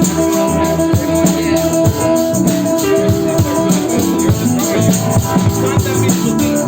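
A band playing a live psychedelic jam: a drum kit keeps a steady, busy beat under held, droning instrument notes.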